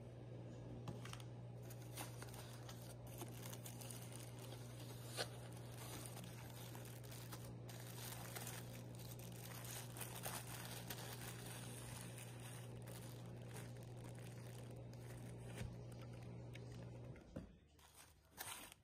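Faint crinkling and rustling of a plastic bag and cardboard packaging as a boxed mini waffle maker is unwrapped by hand, with scattered small clicks and scrapes. A steady low hum runs underneath and stops near the end.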